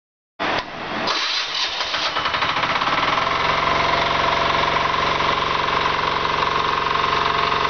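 Shrachi power weeder engine started on its key-operated electric starter: a short crank about half a second in, the engine catching at about a second, then settling into steady running.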